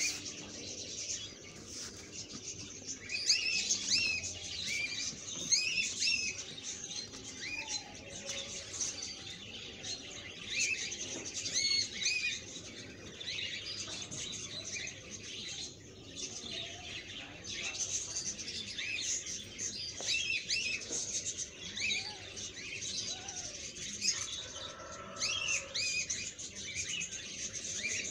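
Small birds chirping and tweeting continuously, many short high calls overlapping one another.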